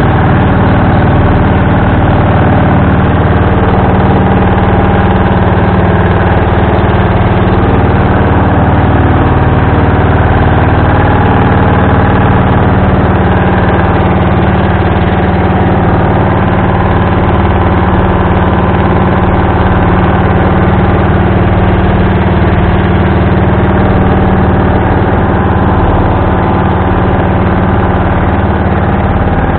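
A boat engine running steadily and loudly, with an even, unchanging note.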